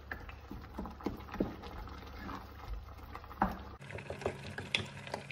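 Wooden spatula stirring a thick, simmering tomato and onion mixture in a non-stick pot: irregular soft scrapes and wet plops of the bubbling sauce.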